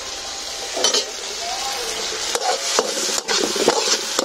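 Onions frying in hot oil in a pan, sizzling steadily, while a spoon stirs them, scraping and knocking against the pan several times.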